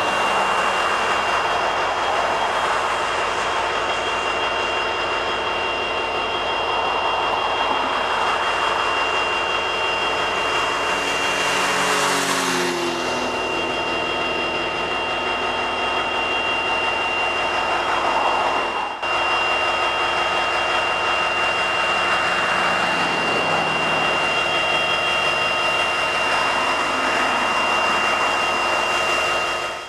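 EMD SD70MAC diesel locomotive standing still with its 16-cylinder two-stroke engine idling steadily, with road traffic going by. A car passes close by about twelve seconds in, its pitch dropping as it goes.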